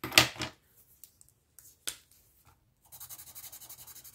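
Plastic markers clattering as one is picked up, then a sharp click about two seconds in. From about three seconds in a Crayola washable felt-tip marker scribbles a colour swatch on paper in quick, even back-and-forth strokes.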